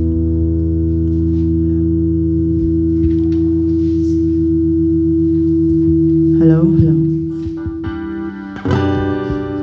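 Live band of keyboard, bass guitar and acoustic guitar holding one long chord. About six and a half seconds in a wavering voice comes in briefly, and near the end the band moves to a new chord.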